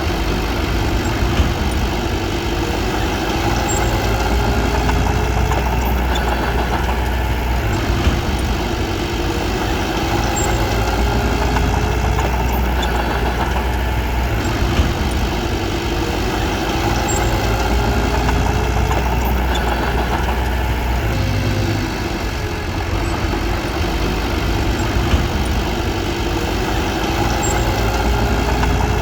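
Crawler bulldozer's diesel engine running steadily and working, its note swelling and easing every few seconds as the load changes, with a few brief knocks.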